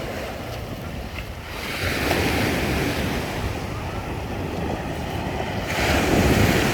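Black Sea surf: waves breaking on the shore, with two loud rushes of surf, about two seconds in and near the end, and wind buffeting the microphone.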